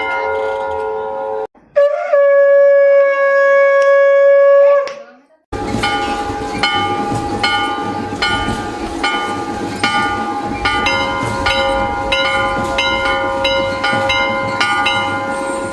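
Temple bell ringing out, then a conch shell (shankh) blown in one long steady blast that fades away. After a short pause, a bell is struck rapidly and repeatedly while held conch tones sound with it, all stopping suddenly near the end.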